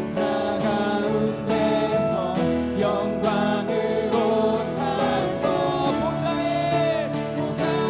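Live worship music: voices singing a slow melody over guitar and a steady beat.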